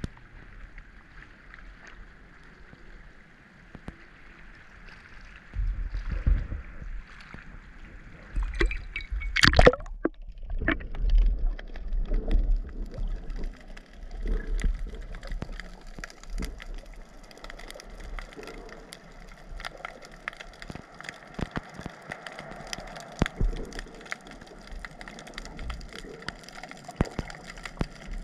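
Seawater sloshing around a camera held at the surface, then a loud splash about nine or ten seconds in as it goes under. After that comes the muffled underwater sound, with scattered sharp clicks and low knocks.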